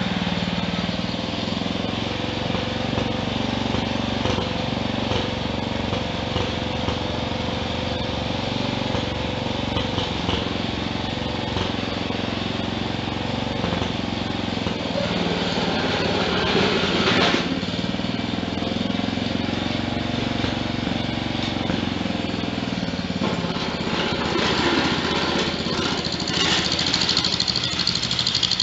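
Small garden-tractor engine of a 1963 Wheel Horse 633 running steadily, with a brief surge of noise about two-thirds of the way through and a rougher, louder stretch near the end.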